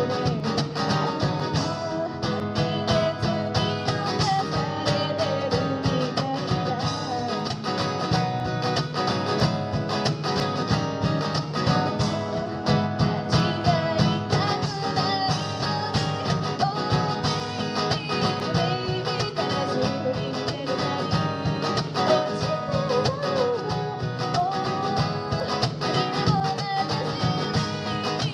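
A live song played on acoustic guitar: a fast, steady strum with a wavering melody line over it.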